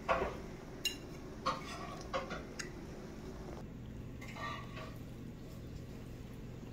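A handful of light clicks and clinks of small hard objects, about five in the first three seconds, then a softer rustle, over a low steady hum.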